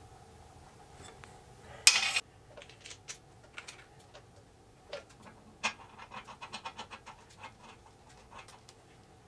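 Hydraulic hoses and metal fittings being handled and fitted to a valve block on a steel frame. A short, loud rushing scrape comes about two seconds in, then scattered metal clicks and a quick run of light ticks.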